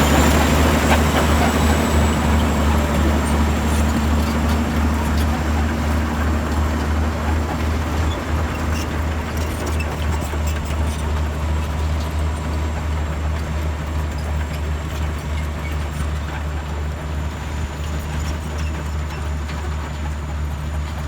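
Bulldozer's diesel engine running steadily with a deep drone and a thin high whine, gradually getting a little quieter.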